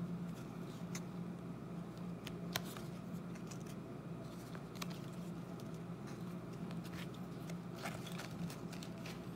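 Baseball trading cards handled and flipped through by hand: soft sliding with a few light clicks of card edges, over a steady low hum.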